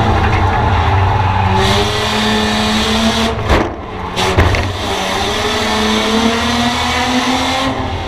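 Race car engine under racing load, heard from inside the stripped-out cabin, its pitch rising and falling. About three and a half seconds in it drops away briefly with a couple of sharp knocks, then pulls steadily again.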